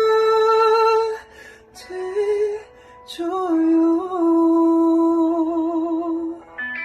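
A man singing a slow Korean ballad, holding long notes with vibrato in separate phrases, with audible breaths between them.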